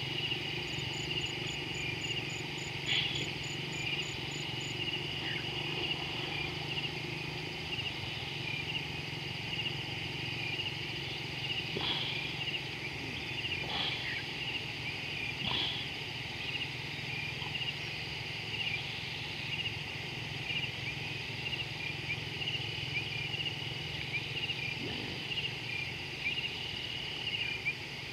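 Dusk chorus of many small calling animals at a waterhole: a steady high chirring made of countless short chirps, with a few louder short calls standing out around a dozen seconds in, over a steady low hum.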